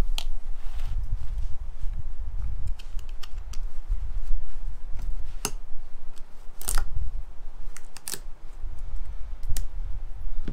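Handling sounds from a broken iPad being pulled apart by hand: a low, continuous rumble of bumping and knocking against the work surface, with about five sharp clicks or snaps, one near the start and four spread through the second half, as the small gold-fingered circuit board is worked free.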